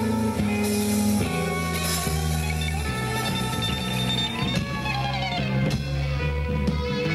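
Live rock band playing: electric guitars over a bass-guitar line and drum kit, with guitar notes sliding down in pitch a little past halfway.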